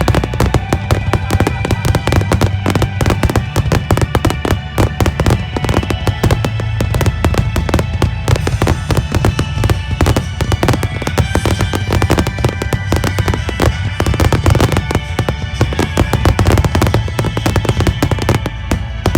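Fireworks finale barrage: shells bursting in rapid, unbroken succession, many bangs a second, with music playing along underneath.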